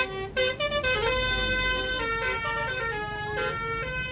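Tour bus's basuri telolet horn playing a tune of stepped notes: short choppy blasts in the first second, then a run of longer held notes.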